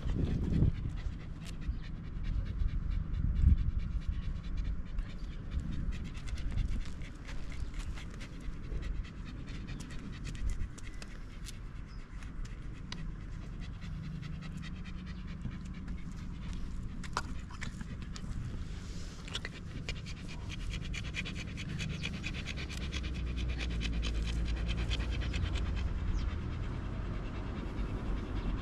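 A Shiba Inu panting with its mouth open, a quick, steady run of breaths throughout.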